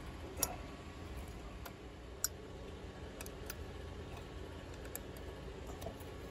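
Sparse, sharp metallic clicks of a small box-end wrench on the water pump pulley bolts of a Yanmar marine diesel, over a faint steady hum.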